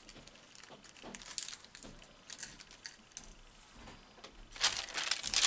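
Light rustles and small taps of hands handling crafting materials, then a loud crinkling rustle of crinkly material being handled, starting about four and a half seconds in.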